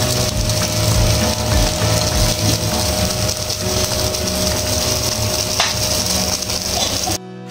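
Open gas stove burner flame rushing up through a wire roasting grill under pieces of chicken, with the meat sizzling over the fire: a loud, even noise with a shifting low rumble. It cuts off abruptly near the end.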